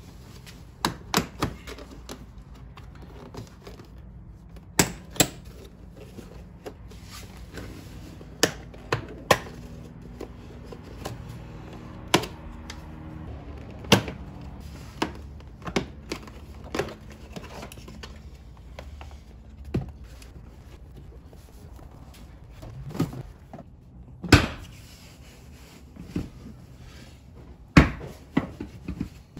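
Plastic interior car trim being pried off and handled: a series of irregular sharp clicks and knocks as the door sill scuff plate and footwell side panel are unclipped.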